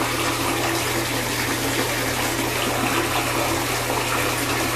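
Steady rush of water running into a bathtub, with a low steady hum underneath.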